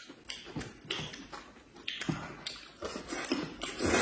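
Close-up eating sounds: wet chewing and lip smacks with light chopstick taps, then a louder slurp of wide noodles near the end.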